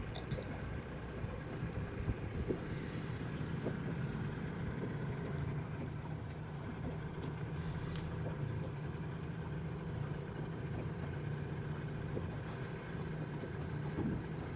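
A small boat motor running steadily under way, a low steady hum.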